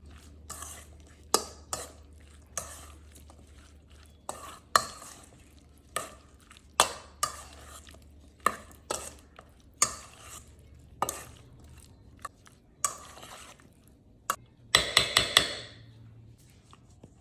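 A utensil stirring in a pot, knocking against its side about once a second with some scraping in between, then a quick flurry of taps a little before the end.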